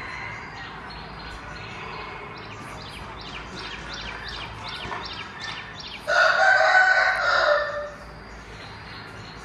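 A rooster crows once, loud, for about a second and a half starting about six seconds in. Before it, a run of quick high chirps repeats about twice a second.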